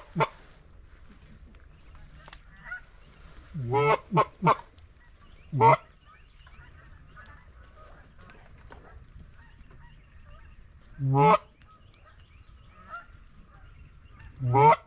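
Loud single goose honks, each a short upward-breaking call, come every few seconds, with three in quick succession about four seconds in. Under them runs the faint continuous chatter of a distant goose flock.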